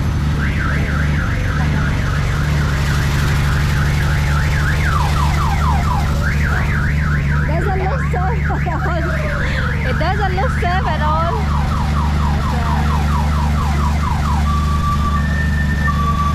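Electronic multi-tone siren cycling through patterns: a fast warble, quick up-and-down sweeps, rapid chirps, then separate beeps at two pitches near the end. It sounds over a steady low engine-like drone.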